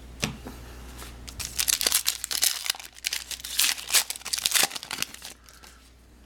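Plastic and foil card packaging crinkling and tearing as a pack is handled and opened, in a run of rustles that settles near the end.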